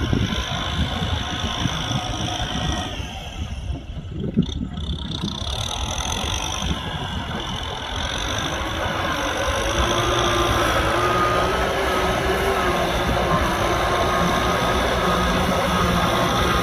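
Kubota M6040SU tractor's four-cylinder diesel engine running, with a brief dip and a single knock about four seconds in, then running steadier and a little louder from about ten seconds with a steady whine.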